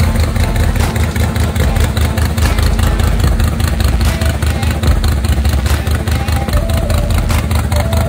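Pontiac GTO race car's engine running at a steady, choppy idle, a deep rumble with rapid pulsing.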